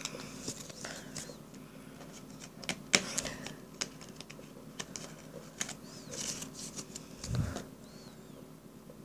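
Trading cards being handled and set down on a table: scattered light clicks and taps, with a soft low thump about seven seconds in.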